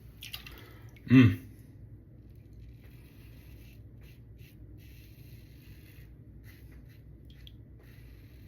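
Faint, intermittent scraping of a Lambda Ares v2 open-comb safety razor cutting stubble through lather in short strokes. A brief hummed vocal sound comes about a second in.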